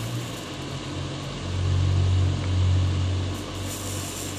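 Steady whirr of an electric fan running, with a deeper low hum that swells louder for about two seconds in the middle.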